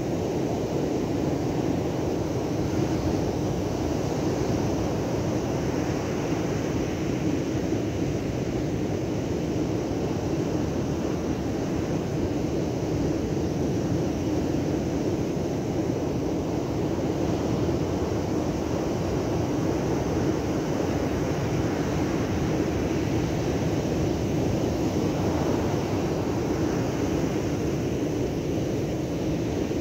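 Steady rush of heavy surf breaking on a sandy beach, with wind noise on the microphone.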